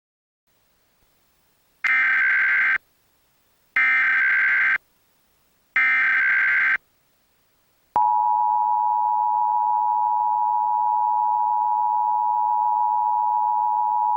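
Emergency Alert System broadcast tones: three one-second bursts of SAME header data about two seconds apart, then, from about eight seconds in, the steady two-tone EAS attention signal. They announce a National Weather Service tornado watch.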